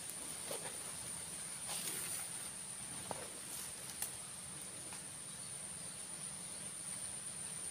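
Steady high-pitched insect drone, with a couple of faint short ticks about three and four seconds in.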